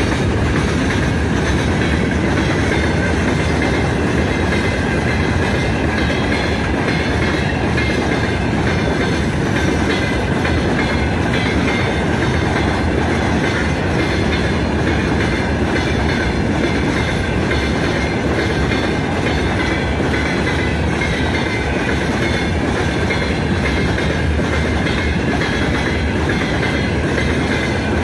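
Freight train of open-top gondola wagons rolling past close by, a steady rumble with the wheels clacking rhythmically on the rails.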